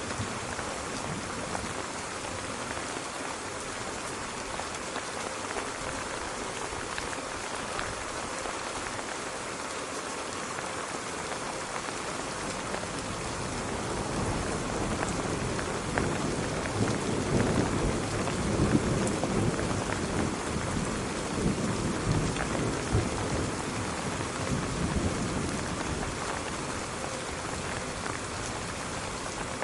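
Steady heavy rain falling, with a long low rumble of thunder that builds from about halfway through, is loudest a little after the middle and dies away near the end.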